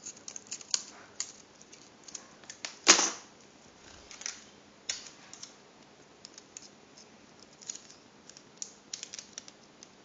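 Scissors snipping through a thick wad of folded paper: a string of sharp clicks and snips with paper handling, and one louder, longer scrape about three seconds in.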